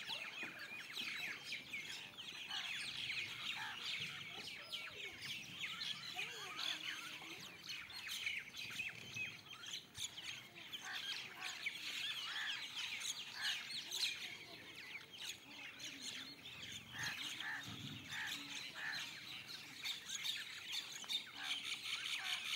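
A flock of many small birds chirping and twittering all at once, a dense, unbroken chatter of quick high calls overlapping each other, with some lower squawks beneath.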